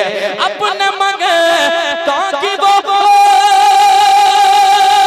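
A male naat singer's voice through a microphone, singing a wavering, ornamented run without words, then holding one long steady high note from about three seconds in.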